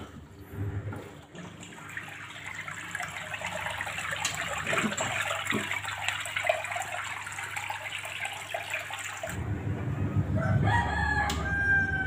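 Waste water from a Polytron Zeromatic top-loading washing machine's drain rushing out across the floor and into a gutter as the machine drains in its wash cycle. About nine seconds in, a low hum comes in, and a rooster crows near the end.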